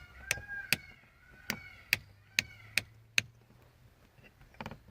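A three-prong rocker kill switch clicking as it is flicked back and forth, about eight sharp clicks in the first three seconds.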